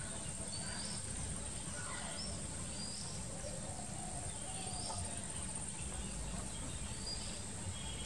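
Outdoor marsh ambience: a steady high-pitched insect drone with scattered short bird chirps, over a low background rumble.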